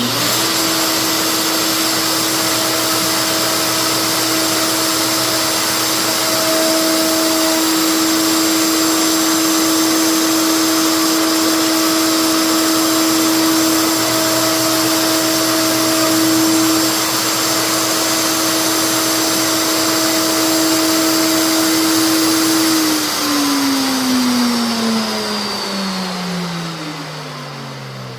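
Electric wood router running at full speed with a steady high whine for about twenty seconds, then switched off, its pitch falling as the bit spins down near the end.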